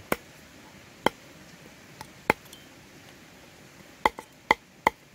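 Meat cleaver chopping raw chicken feet on a wooden chopping board: sharp single knocks, a few spaced apart, then a quicker run of four near the end.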